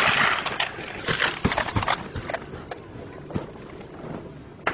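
Gunfire in close combat: the loud echoing tail of a shot or burst, then a rapid, irregular clatter of sharp cracks and knocks for about two seconds that thins out to a few scattered cracks.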